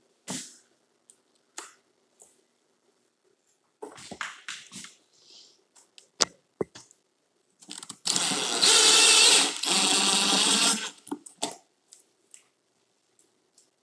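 Cordless drill-driver whining for about three seconds, with a brief stop partway, as it drives a screw through a steel blind bracket into the window frame. Before it come scattered light clicks and knocks from handling the bracket and screw.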